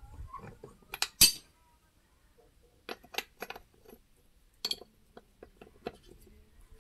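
Metal tools and parts clinking and knocking together while a tractor's front wheel hub is stripped for regreasing: a loud double clink about a second in, three quick clinks a little before halfway, another near the end, and lighter taps between.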